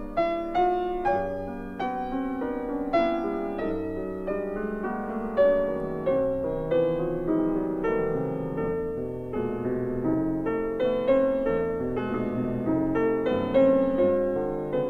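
Background piano music: notes and chords struck and left to ring in a slow, gentle piece.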